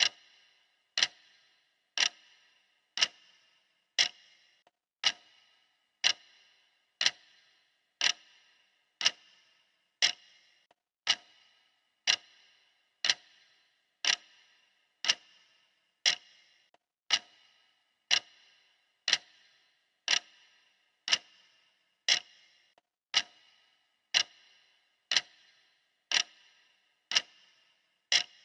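Clock ticking steadily, one sharp tick every second.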